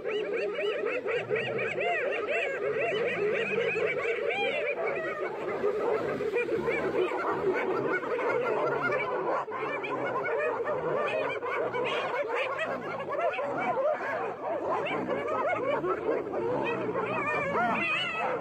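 A pack of spotted hyenas giggling together, many rapid high-pitched laughing calls overlapping without a break.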